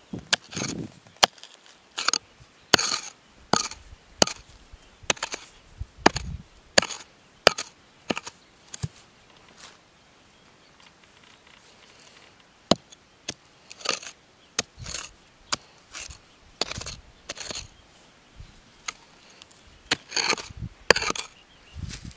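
A hand digging tool chopping and scraping into soil in irregular sharp strokes, about one or two a second, with two short pauses.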